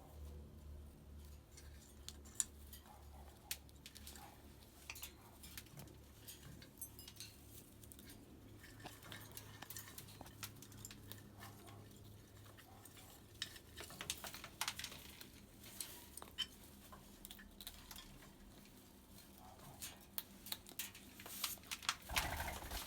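A parrot feeding: scattered light beak clicks and taps, with the odd clink as of a dish. The taps come faster in the second half and are loudest near the end.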